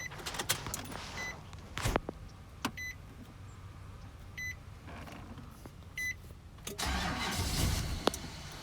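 A dashboard chime beeps about every one and a half seconds with the key in, then near the end the 2005 Nissan Titan's V8 is cranked by the starter for about a second; the truck has a crank-but-no-start fault.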